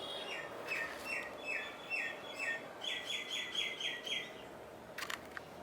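A bird singing: a string of short repeated notes, about two a second, that speed up into a quicker, higher run of notes before stopping about four seconds in. A few faint clicks follow near the end.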